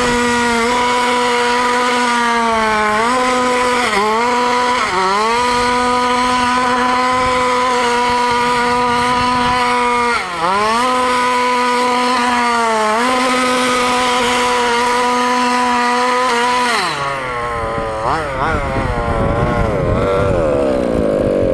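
34cc two-stroke gas engine of a 1/5-scale FG Modellsport Evo RC car running flat out on a speed run. It holds one steady pitch that does not climb any higher, with a few brief dips when the throttle is eased. About 17 seconds in it drops to lower revs that rise and fall. The owner says the engine stops making power past half throttle and chokes instead of revving on.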